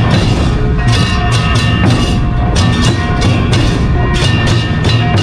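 Percussion-led music with a steady, rapid drumbeat of sharp strikes, with short held notes over it.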